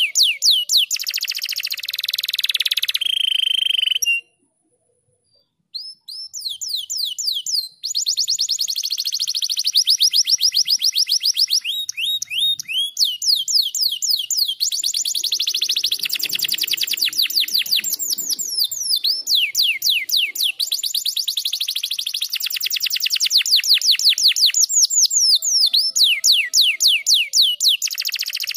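Domestic canary singing a long song of rapid trills and quick falling whistled notes, several a second. The song breaks off into silence about four seconds in and picks up again two to three seconds later.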